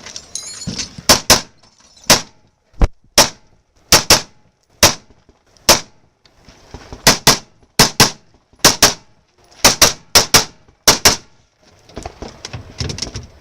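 Rifle fired in a rapid string of about twenty shots, many as quick pairs, at an irregular pace as the shooter engages targets. The shooting stops about two seconds before the end.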